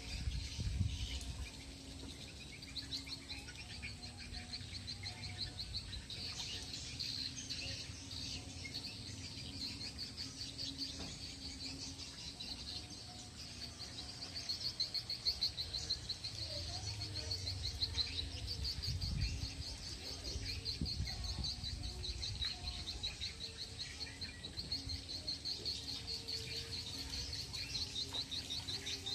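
Outdoor wildlife ambience: a continuous high-pitched, rapidly pulsing trill with scattered chirps. Low rumbles run beneath it, with a dull bump about a second in and another around the middle.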